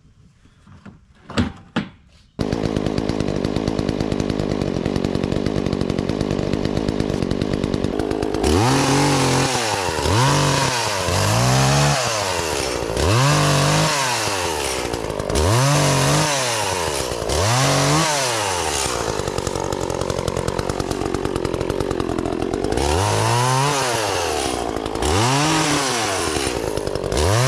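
Echo CS-400 two-stroke chainsaw running. It comes in at a steady idle a couple of seconds in, and from about eight seconds in it is revved up and back down again and again, about once every second or so, held at high speed for a few seconds near the middle.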